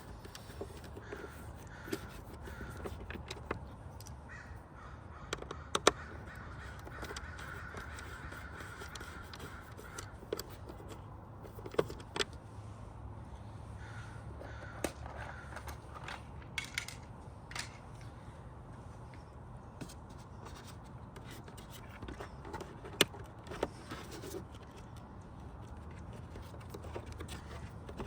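Crows cawing in the background. Scattered sharp clicks and knocks from hand work on the truck's mirror housing, a few of them louder than the rest.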